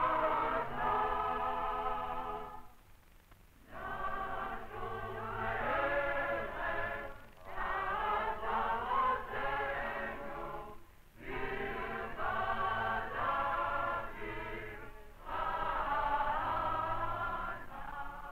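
A choir singing, in phrases a few seconds long with short pauses between them, fading near the end.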